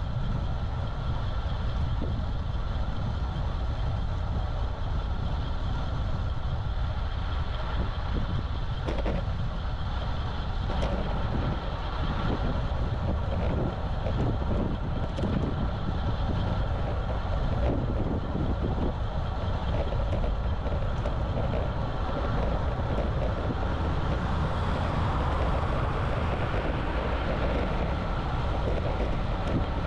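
Steady wind and road noise from riding a road bike, picked up by the action camera's microphone: a constant low rumble with a few faint ticks.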